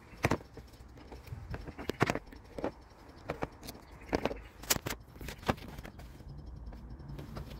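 Hand tools and metal parts clicking and clinking, a dozen or so sharp taps at uneven intervals over a low steady hum.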